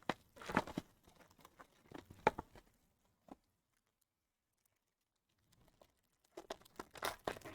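Trading card packaging and cards being handled: rustling, crinkling and light taps, in two bursts with a pause of about two seconds between them.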